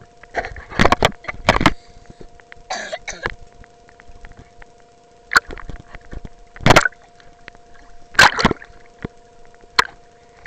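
Water splashing and knocking against a camera held at the waterline as it dips under and breaks the surface, in irregular loud bursts a second or two apart. A faint steady two-tone hum runs underneath.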